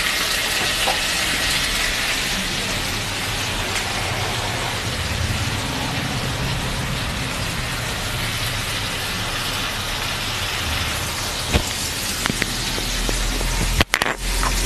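Cubed potatoes frying in hot oil in a kadai: a steady sizzle, with a few light clicks near the end.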